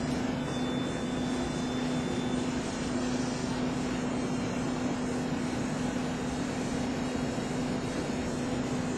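Steady drone of a cruise ship's interior machinery and ventilation, with an unchanging low hum.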